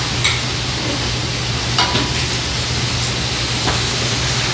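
Beef sizzling steadily in a frying pan over a low hum, with a few light clinks of utensils against dishes.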